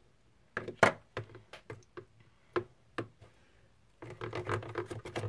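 A pen used as a stirrer tapping and scraping against a clear plastic tub while mixing glitter slime that is starting to set with borax activator: scattered sharp taps, then about four seconds in a quicker, denser run of scraping clicks.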